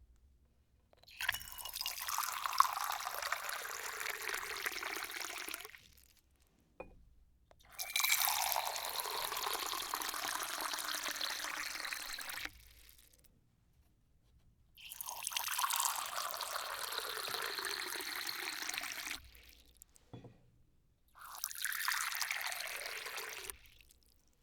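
Water being poured four times in separate pours of a few seconds each, with a short pause between them. In each pour the pitch falls as it goes on.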